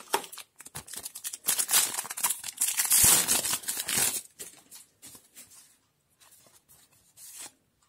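Foil trading-card booster pack being crinkled and torn open by hand, loudest about three seconds in, then quieter rustling as the cards are slid out.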